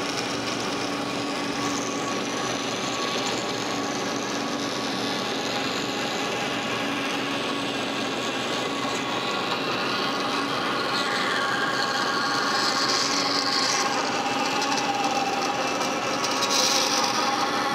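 DoAll vertical metal-cutting bandsaw running, its blade cutting diagonally through a small metal plate with a steady rasping cut. The cut grows louder and sharper for two stretches in the second half.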